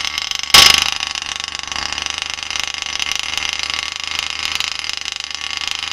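The 26 cc two-stroke petrol engine of a 1/8-scale RC car running, with a sudden loud burst about half a second in and then steady, rapidly pulsing running.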